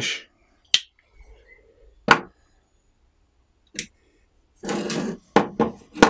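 Steel Leatherman multitools being handled: sharp metal clicks as the pliers are folded shut, a short scraping rub, then a quick run of knocks as the tools are set on the wooden workbench.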